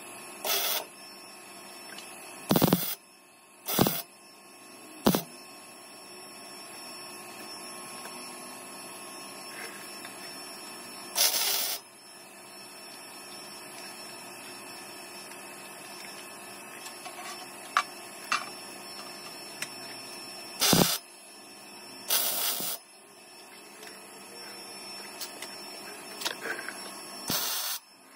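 Welder laying short tack or stitch welds: about eight brief bursts of welding, each under a second, spaced irregularly, with a steady electrical hum between them.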